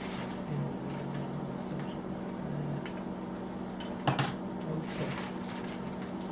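Metal parts and tools clinking as they are handled, with a sharper metal clank about four seconds in, over a steady low hum.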